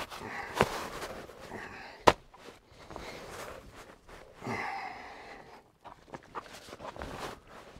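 M65 field jacket being folded and stuffed into a canvas backpack: fabric rustling and shuffling in bursts, with a sharp click about two seconds in as the loudest sound.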